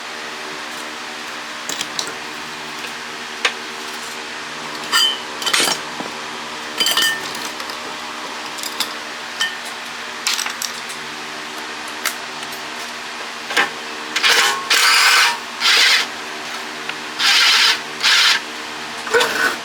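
Metal parts clinking and knocking as a water-pump motor is taken apart, then several short bursts of a power drill or driver near the end, all over the steady hum of a room fan.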